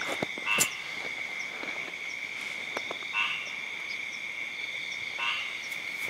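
Night chorus of frogs: three short pulsed croaks roughly two seconds apart over a steady high-pitched drone, with a sharp click about half a second in.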